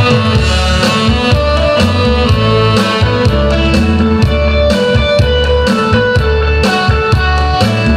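Instrumental introduction of a Korean gayo song played from a backing track: drum kit with a steady beat, bass and guitar, before the vocal begins.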